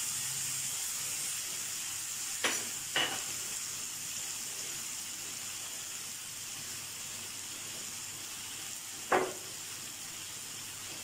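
Onion and tomato masala sizzling steadily in hot oil in a non-stick frying pan, the sizzle slowly getting quieter. Three short knocks break through it: two about half a second apart a couple of seconds in, and one near the end.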